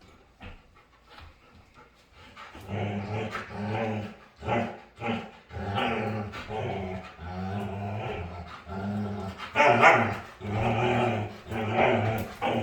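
A dog play-growling: a run of drawn-out low growls, one after another, starting about two seconds in, with a few short, sharper barks among them.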